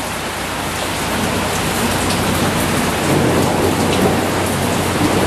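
Steady rushing noise like rain, over a low steady hum, growing a little louder about a second in.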